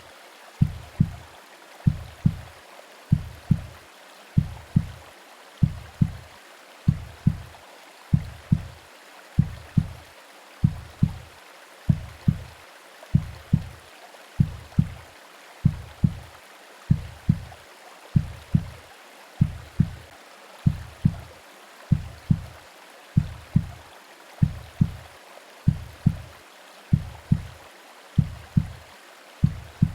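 Womb-sound heartbeat: a slow double thump, lub-dub, about once a second, over a steady hiss of white noise and rain.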